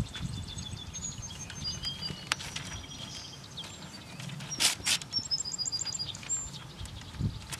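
Wild birds chirping and calling in short high notes, with a quick run of about six repeated notes around five and a half seconds in. A few sharp rustles of paper being handled, the loudest a little after the middle.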